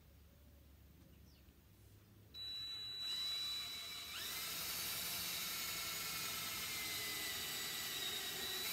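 Cordless drill boring a pilot hole into a wooden board. Quiet for about two seconds, then the drill starts and runs steadily with a high whine through the cut.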